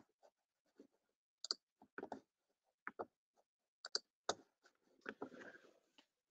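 Faint, scattered computer-mouse and keyboard clicks, several in quick pairs, with a short rustle about five seconds in.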